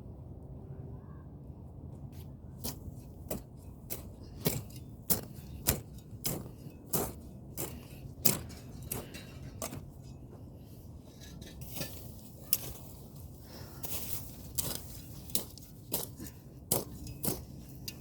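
Irregular sharp knocks and clinks, one or two a second, over a low rumble: a hand tool striking the ground while digging.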